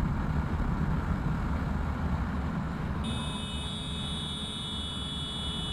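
Yamaha R15M motorcycle's single-cylinder engine running at cruising speed with wind and road noise, heard from a camera on the bike. About three seconds in, a steady high-pitched tone starts and holds.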